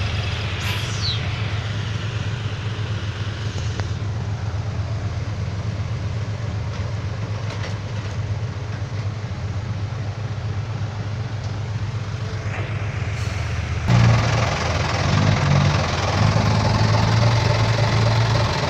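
Truck engine running steadily. About fourteen seconds in, the sound abruptly gets louder.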